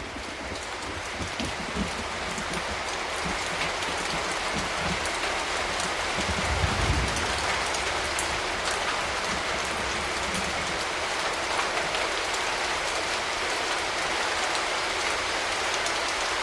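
Heavy rain falling steadily and splashing on a hard surface, a dense even hiss with a low rumble underneath.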